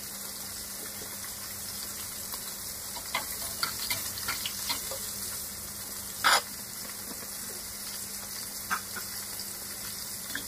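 Whole fish frying in oil in a wok: a steady sizzle with scattered spitting pops, the loudest about six seconds in.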